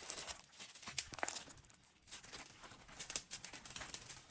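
Slime being kneaded and stretched by hand: sticky clicks and crackles, scattered and irregular, with a sharper snap about a second in.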